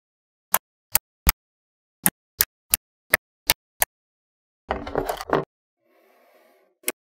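Small magnetic balls snapping onto one another one at a time, a string of about nine sharp clicks roughly a third of a second apart. Then a short rattling clatter of balls at about five seconds and one last click near the end.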